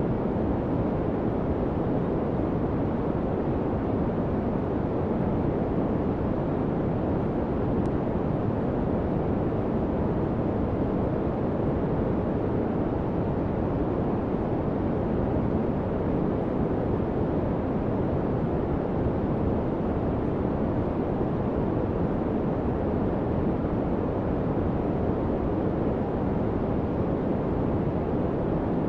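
Continuous noise track used as a masking bed for a subliminal recording. It is a steady, even rush, deeper than pure white noise, with most of its weight in the lows and low mids and little hiss on top.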